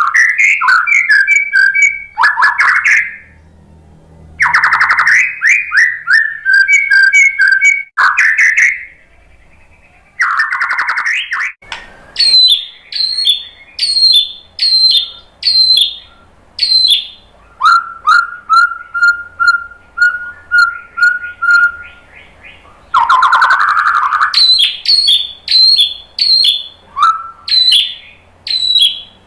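White-rumped shama (murai batu) singing a loud, varied song: rich whistled phrases, then runs of short repeated high notes about one and a half a second, with a series of lower repeated whistles about two a second in the middle.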